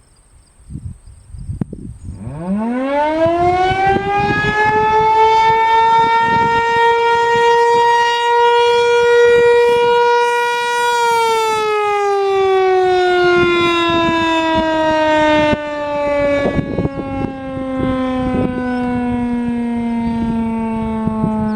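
American Signal Corporation T-135 AC/DC outdoor warning siren sounding a short alert test. It winds up over a few seconds to a steady tone, holds it, then about halfway through starts winding down, the pitch falling slowly.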